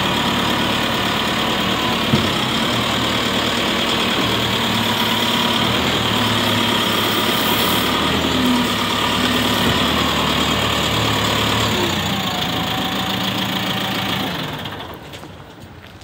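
JCB 535-140 telehandler's diesel engine idling steadily, then dying away about fourteen seconds in as the engine stops.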